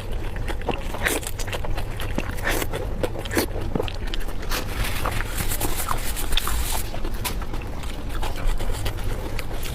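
Close-miked eating sounds: a person chewing and smacking food, with many irregular wet clicks and crunches over a steady low rumble.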